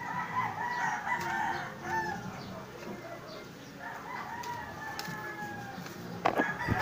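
Rooster crowing twice, the second call ending on a long held note. A few sharp knocks near the end.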